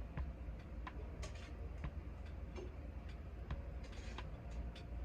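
Scattered light clicks and taps of a utensil against a cooking pot and dishes, irregular rather than rhythmic, over a steady low hum.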